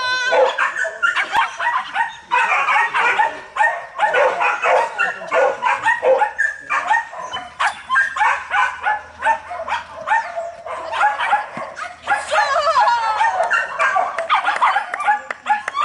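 A dog barking over and over in quick, high yips, several a second, with a few sliding whining yelps about three-quarters of the way through.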